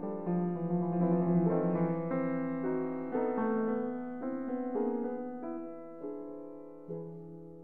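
Background piano music: notes struck one after another and left to ring, growing softer toward the end.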